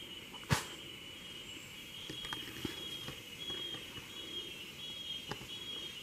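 Rainforest insects chirring in a steady, high, faintly pulsing drone, with one sharp click about half a second in. Light rustling and soft footsteps through dry leaf litter follow.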